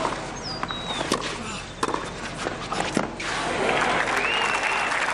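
Tennis ball struck with a racket several times in a rally on a clay court, a sharp hit every second or so. From about three seconds in, crowd applause and cheering take over as the point ends.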